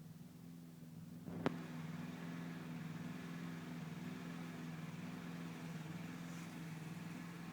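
Bees buzzing: a steady low hum of wingbeats with a sharp click about a second and a half in.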